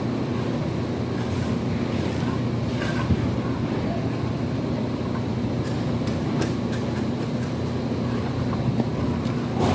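Steady low mechanical drone, like an engine running, with wind-like noise and a few faint clicks in the second half.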